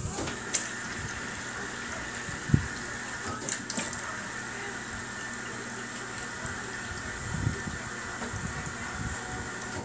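Refrigerator door water dispenser running, a steady stream of water filling a plastic measuring cup, stopping at the very end.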